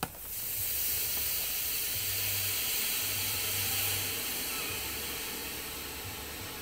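A severely damaged lithium polymer pouch cell, just pierced with a hammer, venting as it reacts: a loud hiss that starts suddenly, is strongest for the first few seconds, then slowly eases off.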